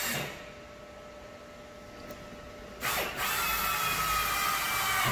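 Power drill whining at the car's trunk lid, faint for the first few seconds and then louder from about three seconds in.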